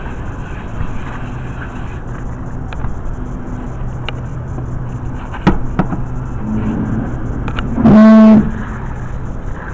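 Steady hum of city traffic with a few sharp knocks. About eight seconds in comes one loud, flat-pitched vehicle horn blast lasting about half a second, the loudest sound here.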